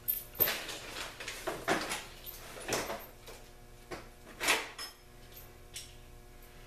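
Tools and metal hardware being handled: a string of irregular knocks and clatters, the last and loudest about four and a half seconds in, then only a faint steady hum.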